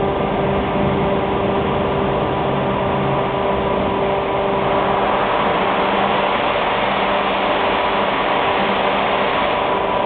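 AAC (autoclaved aerated concrete) block cutting machine running with a steady mechanical hum made of several tones. About halfway through, a louder hiss joins the hum and one of the tones drops out until near the end.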